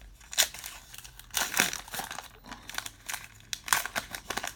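A 2019 Topps Heritage hobby pack wrapper being torn open and crinkled in the hands, making a run of irregular crackles.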